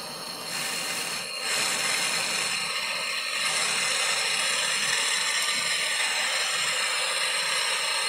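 Handheld gas torch burning with a steady hiss, building over the first second or two, then holding level. The flame is heating a soldered nozzle on a refrigerator's copper tubing to melt the joint free.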